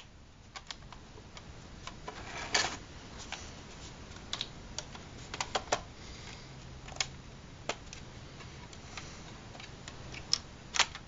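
Scattered light clicks and taps of a plastic model building kit's walls and roof piece being handled and pressed together on a table, with one short rub about two and a half seconds in.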